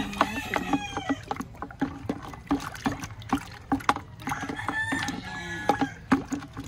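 Liquid fertilizer sloshing in a plastic bucket as a stick stirs it, with many small knocks and clicks of the stick against the bucket. A rooster crows in the background, a long call starting about four seconds in.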